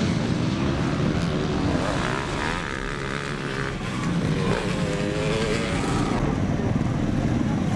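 Motocross dirt bike engines revving, their pitch rising and falling as the riders work the throttle through the gears.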